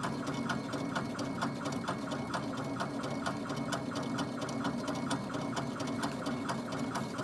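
Laser engraver's stepper motors whirring as the head scans back and forth while it engraves a wooden knife handle, in a rapid, even pulse of about five strokes a second over a steady hum.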